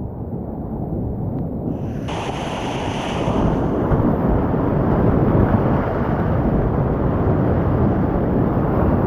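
Rushing whitewater of a steep mountain creek rapid, loud and close to the microphone, swelling and brightening about two seconds in.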